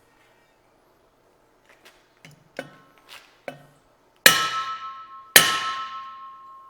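A few light taps, then two hard hammer blows on a steel driveshaft tube about a second apart, each leaving the tube ringing with a clear metallic tone. The tube is being struck to straighten out its runout.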